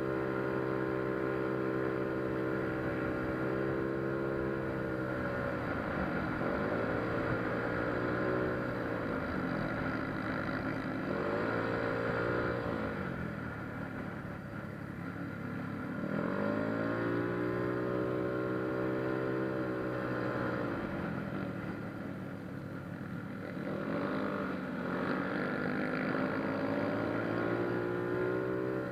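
Yamaha Mio Soul scooter's single-cylinder four-stroke engine, bored out to 160cc with a 59 mm chrome bore, big valves and a 28 mm carburettor, running hard. Its pitch drops and climbs back several times as the throttle is eased and opened again, with the longest dip about halfway through.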